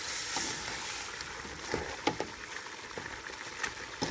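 Metal spoon stirring shredded banana trunk heart, pork ribs and jalapeños in a metal pot over high heat: a steady sizzle with a few light clinks and scrapes of the spoon against the pot.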